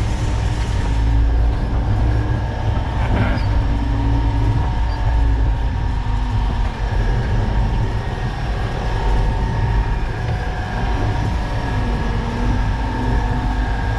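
Concrete mixer truck driving, heard from inside the cab: a deep steady rumble from the diesel engine and drivetrain, its note rising and falling slightly, with a thin steady whine over it.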